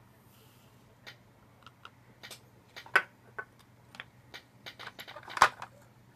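Scattered light clicks and clinks of glass test tubes and a plastic funnel being handled in a plastic test-tube rack, the sharpest about three seconds in and again about five and a half seconds in. A brief faint hiss near the start as iron filings are poured through the funnel.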